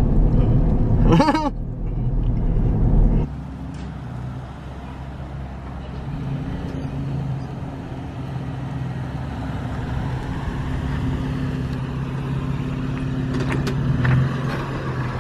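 Cabin rumble of a 5th-gen Toyota 4Runner TRD Pro on the road for about three seconds, then an abrupt change to the truck heard from the street: its 4.0-litre V6 running steadily with tyre noise as it drives up, growing louder as it comes close near the end.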